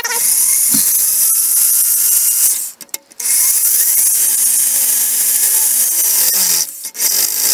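Power drill boring a hole through an aluminium plate and the plastic of a lawn tractor hood mount for the pivot bolt. It runs steadily in two long runs with a brief stop about three seconds in, and stops near the end.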